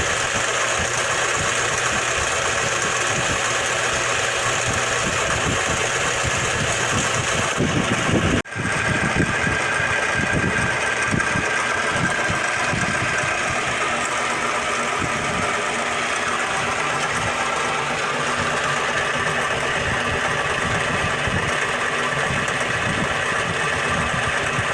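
A machine running steadily with a rattling mechanical noise. The sound breaks off for an instant about eight seconds in, then carries on as before.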